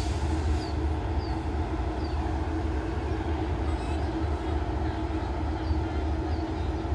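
Diesel railcar train idling at a standstill, a steady low engine hum with a held tone. A faint high chirp repeats about every 0.7 s over it.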